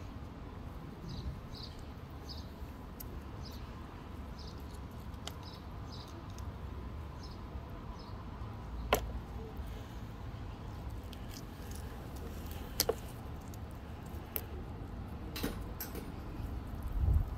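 Fossil-bearing rocks handled in a tub of muddy water, with a few sharp clicks and knocks of rock, over a low steady rumble. Short high chirps repeat about twice a second during the first few seconds.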